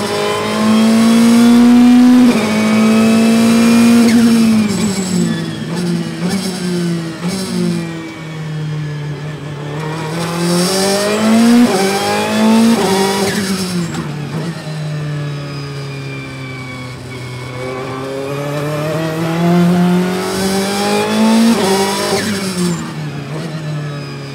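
Ferrari 488 GT Modificata's twin-turbo V8 racing engine, heard from inside the cockpit, revving up and dropping away several times as the car brakes, shifts down through third and second gear, and accelerates between corners. Each pull rises steadily in pitch, and each lift or downshift drops it sharply.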